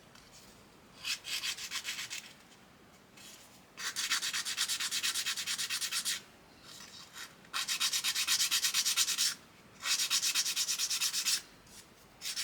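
A plastic model-kit part being sanded or filed by hand: quick back-and-forth scraping strokes, several a second, in four bouts with short pauses between them.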